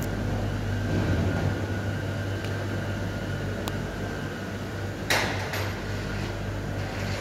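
Steady low mechanical hum, with a single sharp clatter about five seconds in.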